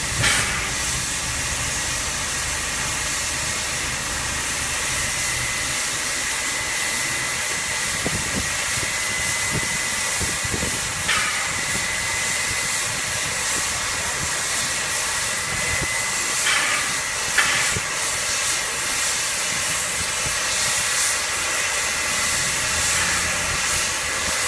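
NSWGR 36 class steam locomotive 3642 hissing steadily as steam escapes while it stands on a slowly turning turntable, with a faint high whistling tone running through the hiss. A few short knocks come about two-thirds of the way through.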